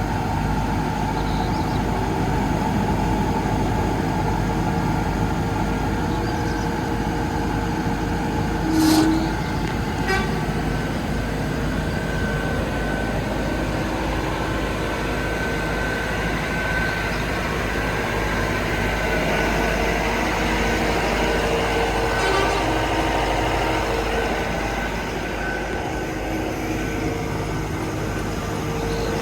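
Vögele Super 1303-3i asphalt paver's diesel engine running steadily, with a brief louder sound about nine seconds in.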